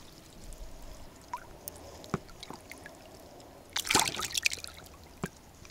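A hooked zander (pike-perch) splashing and thrashing at the surface beside an inflatable boat as it is brought in, loudest about four seconds in. Quieter water trickling and a few small knocks come before it.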